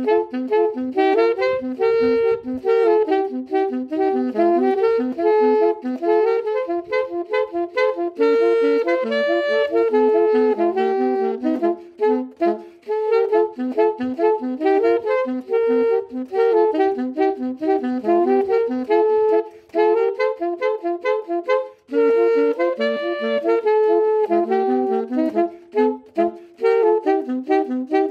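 Alto saxophone playing a lively melody of quick, short notes, with brief pauses about twelve and twenty-two seconds in.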